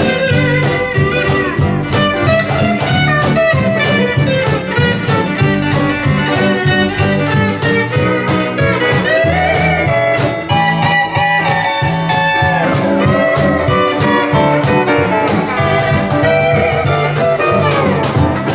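Instrumental Hawaiian music played live by a small band: a Hawaiian steel guitar carries the melody with gliding, sliding notes over ukulele, rhythm guitar, bass and percussion keeping a steady beat.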